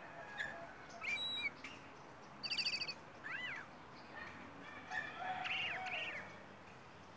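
Caged songbird singing short whistled phrases with pauses between them, ending in a longer phrase near the end.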